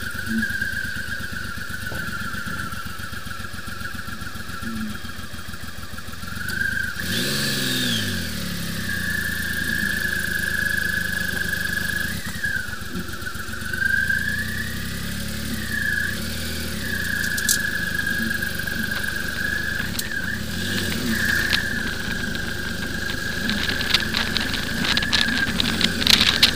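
Motorcycle engine running on the move, with a steady high whine over it; the engine note drops and climbs again about seven seconds in. Wind buffets the microphone near the end.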